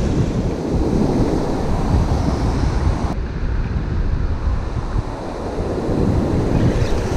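Ocean surf washing in over the beach, with wind rumbling on the microphone.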